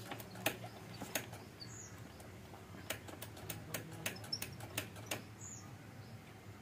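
About a dozen light, irregular clicks and taps from hand work on a motorcycle's rear disc brake caliper, over a faint steady low hum.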